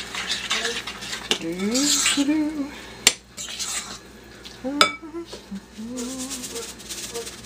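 Metal spoon stirring and scraping a tuna burger mixture in a glass mixing bowl, with two sharp clinks of the spoon against the bowl about three and five seconds in. Short sliding pitched sounds come and go in the background.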